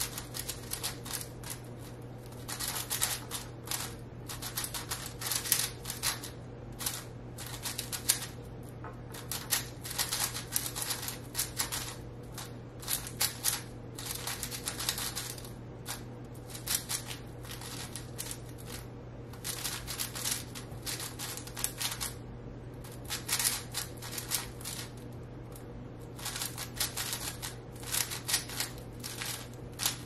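5x5 speed cube turned rapidly by hand, its plastic layers clicking and clacking in quick bursts separated by short pauses.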